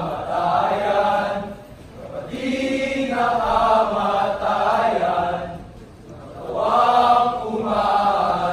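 Group of young male voices chanting in unison in a sabayang pagbigkas choral recitation, held on level pitches, in three phrases with short breaks between them.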